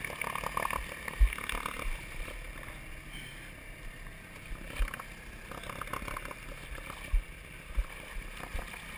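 A few dull, deep bumps as people shift their weight about in a small aluminium boat, over a faint steady hiss of water and wind. The loudest bump comes about a second in.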